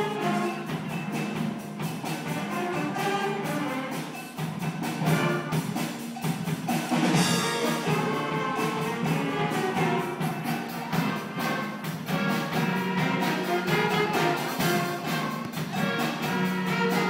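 A school band playing live: wind instruments over a steady drum beat, heard across a large hall.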